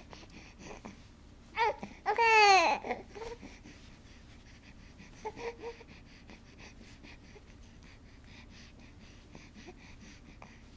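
Baby vocalizing: a short squeal and then a loud, high squeal of about a second that falls in pitch at the end, followed about five seconds in by a couple of soft short coos.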